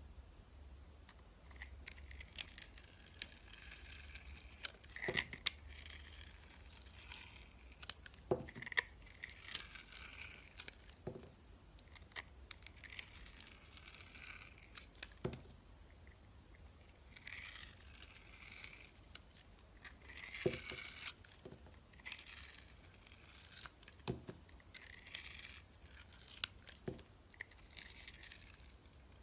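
Close-miked crisp scraping and crackling strokes in episodes of a second or two, with pauses between, and about a dozen sharp taps or knocks among them.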